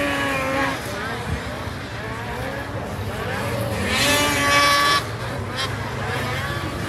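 Racing snowmobiles' two-stroke engines revving up and down as the sleds race around the snocross track, several engine pitches gliding and overlapping. About four seconds in, one sled winds up loudly, then cuts off sharply a second later.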